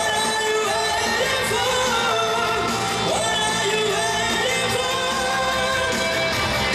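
Live pop music: a male singer singing into a hand-held microphone over an amplified band with drums.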